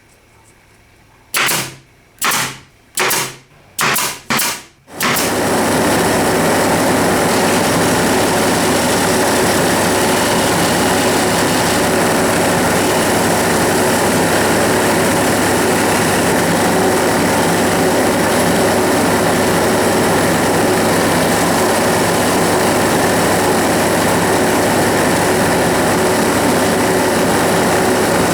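A workshop power tool blipped on five times in quick succession, each burst dying away, then switched on and left running steadily.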